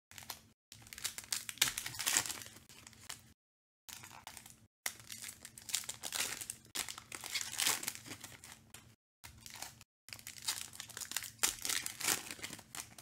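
Foil trading-card pack wrappers crinkling as packs are handled and torn open, with cards shuffled in between: irregular bursts of crinkling broken by several short dead-silent gaps.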